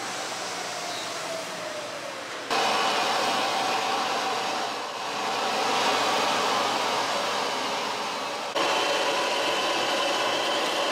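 Steady rushing noise of kitchen equipment at a steamer station. It jumps abruptly louder about two and a half seconds in and again near the end, with a short dip in between.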